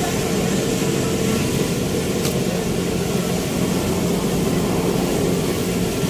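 A steady engine drone with a broad rushing noise over it, running without a break; a higher hum in it drops out about a second and a half in.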